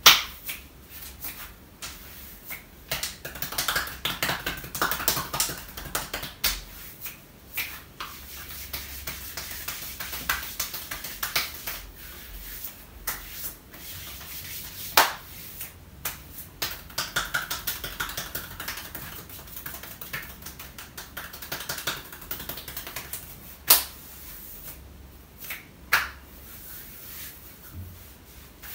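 Hands massaging bare skin on the shoulder and arm: rubbing, broken by many sharp slaps, taps and snaps. The loudest crack comes right at the start, and two more loud ones come near the end.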